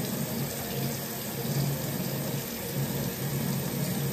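Steady rush of running water, like a tap left on.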